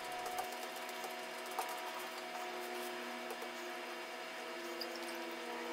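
A steady mechanical hum with several tones layered over a faint hiss, and a few light ticks.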